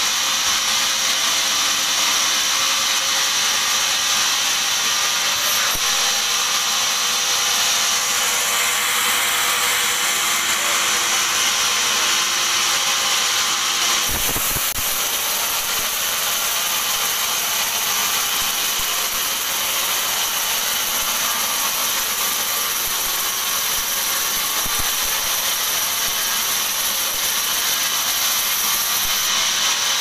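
Large band sawmill cutting lengthwise through a curved teak log: a steady, high-pitched hiss of the blade in the wood over the running machinery. A brief thump comes about halfway through.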